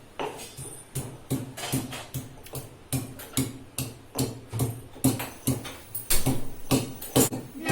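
Peeled ginger being pounded with a pestle in a stone mortar: steady, rhythmic knocks, about two or three a second, each with a short low ring.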